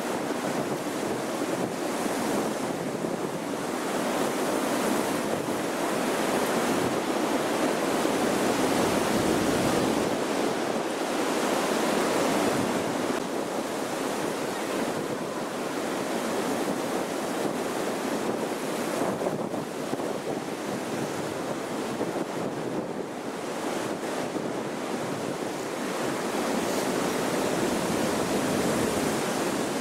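Strong gusty wind, a steady rushing that swells and eases every few seconds.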